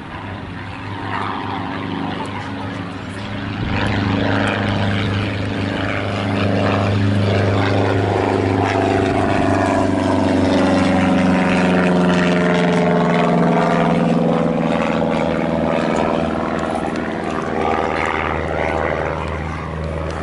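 A steady, low engine drone passing by: it grows louder about four seconds in, is loudest around the middle, and eases off toward the end.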